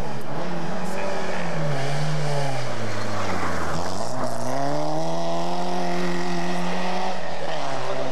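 Rally car engine coming off the throttle, its revs falling for about three seconds, then picking up again and revving hard as the car accelerates away, before easing off near the end.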